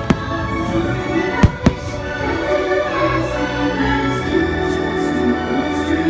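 Disneyland fireworks show with its soundtrack music playing steadily. Firework bursts bang three times in the first two seconds, two of them close together.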